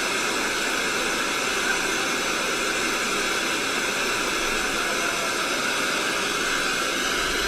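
Floodwater rushing into a subway station, a steady, even rush of water noise with no breaks.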